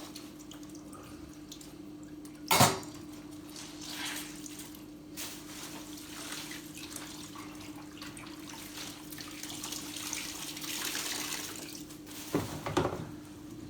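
Water trickling and dripping while wet items are handled, over a steady low hum. A sharp knock comes about two and a half seconds in, and a few more knocks near the end.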